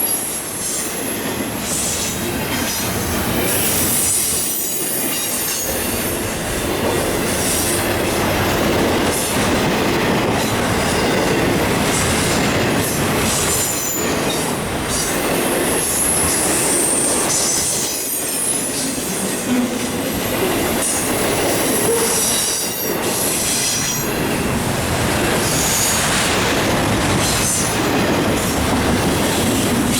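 Freight cars of an intermodal train rolling past at close range: steady wheel-on-rail rumble and clatter, with intermittent high-pitched wheel squeal.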